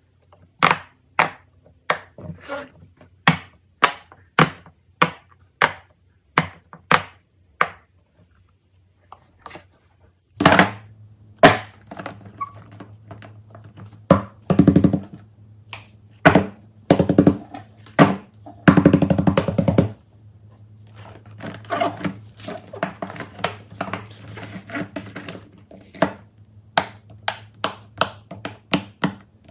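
Fidget toys being handled, with a run of sharp clicks about two a second. After a short pause come louder dense bursts over a steady low hum, then a quicker run of clicks near the end.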